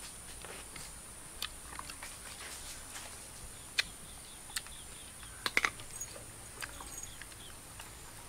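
Scattered light clicks and taps, a small cluster of sharper ones about five and a half seconds in, over a faint steady high-pitched hum.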